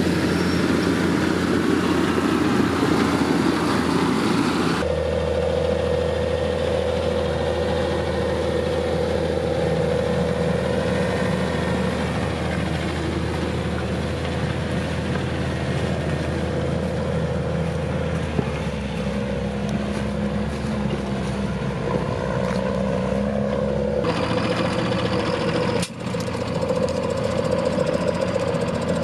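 John Deere 7720 tractor's six-cylinder diesel engine running steadily. Its sound changes abruptly about five seconds in and again near the end, where one clip gives way to another.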